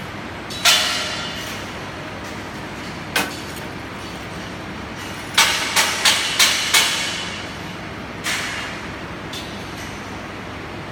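Hammer blows on steel, each hit ringing briefly: a single blow, another, then a quick run of five, and one more near the end, over a steady background hum.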